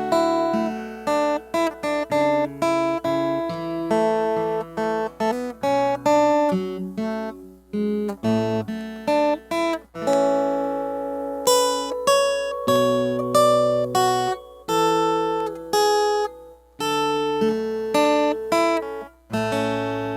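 Solo acoustic guitar playing fingerstyle, picked melody over bass notes, each plucked note ringing and decaying, with brief pauses between phrases.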